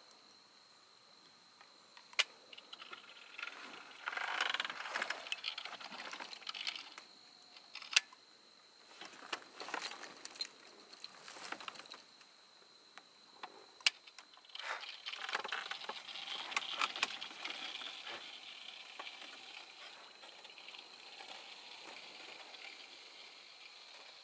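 Insects trilling steadily at one high pitch, with irregular spells of crackly rustling and a few sharp clicks, about two, eight and fourteen seconds in.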